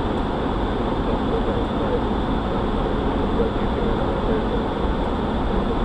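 Steady cockpit noise of an Airbus A300-600 in flight: a constant rush of airflow over the flight deck mixed with engine hum, with no change in level.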